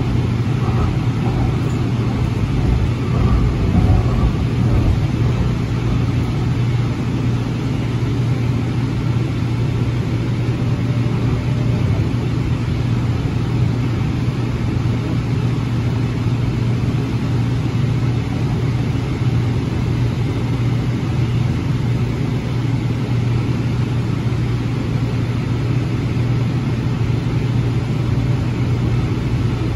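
A 2006 AnsaldoBreda P2550 light rail car running along its track, heard from inside the passenger cabin: steady running noise under a continuous low hum, briefly louder a few seconds in.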